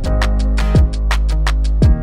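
Background music with an electronic beat: sharp drum hits over held synth notes, and a deep bass note that slides down in pitch twice.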